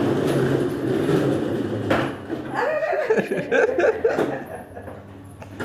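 Plastic wheels of a child's ride-on toy truck rumbling over a tiled floor. About two seconds in, young children's voices and giggles take over, with a few sharp plastic knocks.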